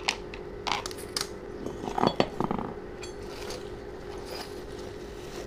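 Light metallic clinks and taps of a digital caliper and hand tools being handled and set down on a concrete floor, several in the first two and a half seconds, over a steady low hum.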